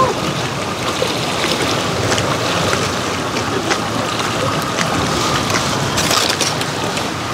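Steady wind blowing across the microphone on a lakeshore, with water sounds and a few faint knocks mixed in.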